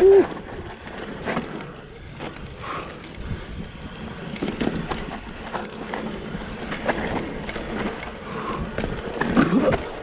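Electric mountain bike clattering and knocking over loose rocks on a steep descent, the frame, chain and tyres rattling with each hit. There is a short pitched sound right at the start, the loudest moment, and another near the end.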